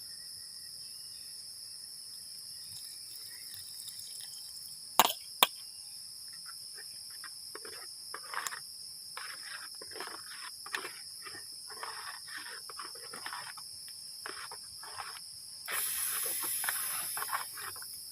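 Steady chirring of crickets. About five seconds in there are two sharp clicks, followed by a run of soft, irregular knocks and clatters, and a brief louder hiss near the end.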